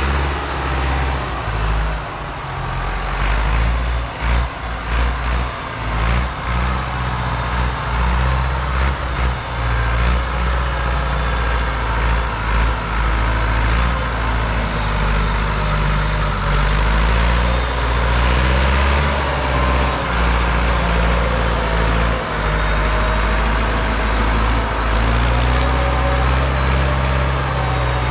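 A heavy engine running steadily, its pitch stepping up and down now and then, with irregular knocks and rattles in the first part.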